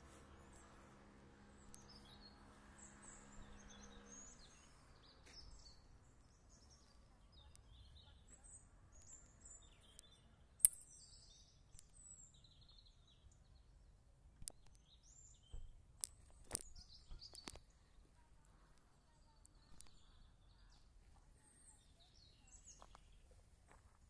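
Small birds chirping faintly in woodland, over a low steady hum that stops about four seconds in. A few sharp clicks stand out, the loudest about ten and a half seconds in.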